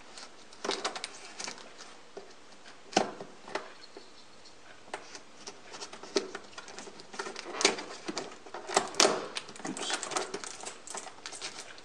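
Hands and a utility knife working at the taped end of a cardboard box to open it: scattered small clicks, taps and scraping on cardboard, a few at first and much busier from about halfway through.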